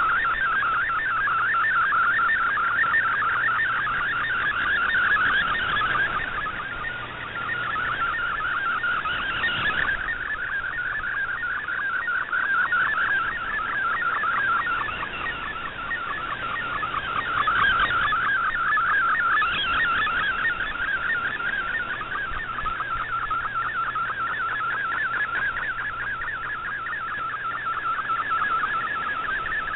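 Shortwave digital image signal from the Shortwave Radiogram broadcast, received in AM on an Icom IC-R8600: a fast-warbling mid-pitched data tone as an image is sent in MFSK picture mode. The signal swells and fades slowly.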